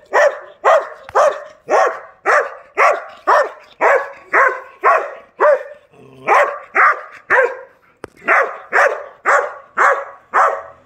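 A young Rottweiler barking over and over, about two sharp barks a second, with two short breaks about halfway through.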